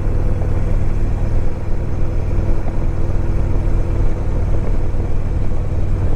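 Harley-Davidson Electra Glide Ultra Limited's V-twin engine running at a steady cruise, with road and wind noise on the helmet or bike microphone.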